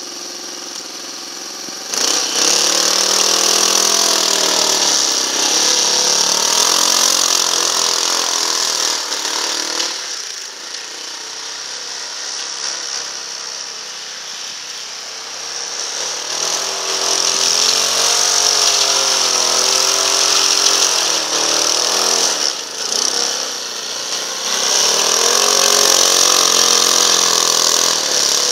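Engine of a Leshy 2x2M two-wheel-drive motorcycle revving up and down as it pushes through deep snow. It runs at a low steady level for the first two seconds, jumps up sharply, eases off around ten seconds in, and revs hard again twice near the end.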